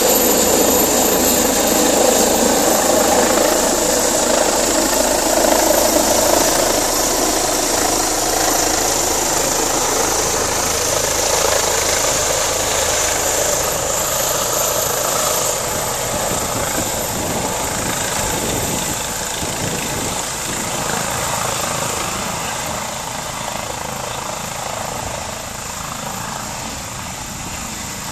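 Police helicopter's turbine and rotor noise as it flies in low and comes down to land, growing steadily fainter as it moves away to the far side of the field.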